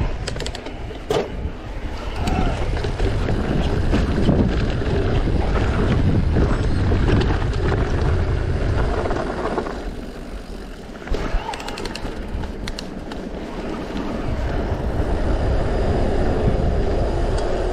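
Mountain bike riding down a rough trail: a steady rumble and rattle of tyres and frame over rock and gravel, with wind buffeting the microphone and sharp knocks about a second in and again about eleven seconds in.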